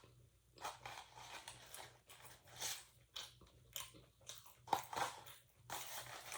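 A person chewing and biting into crunchy fast food close to the microphone, irregular wet crunches with a sharper bite about three-quarters of the way through.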